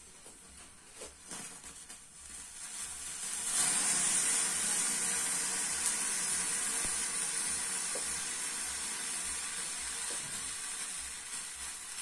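Copper oxide thermite mixture catching and burning: a few faint crackles, then about three and a half seconds in a sudden loud, steady hiss as the mixture burns, easing off slightly near the end.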